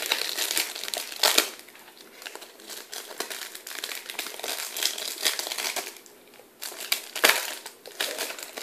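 Foil trading-card pack wrapper crinkling and crackling as it is handled and pulled open, with louder crackles about a second in and again near the end.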